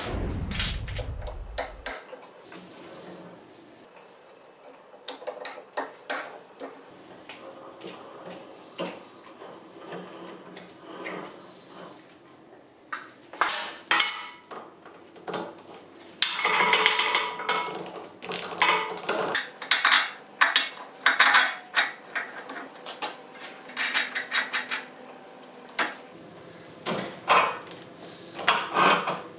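Steel roller chain clinking and rattling as it is handled and fitted onto a steel lifting mast, with scattered metal clanks. The rattling of the chain links grows busier about halfway through and comes in clusters near the end.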